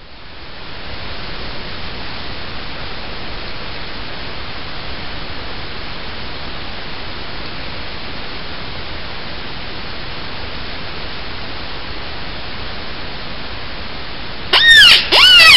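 Steady hiss, then about a second before the end a coyote predator call starts: loud, repeated squalling cries that rise and fall in pitch.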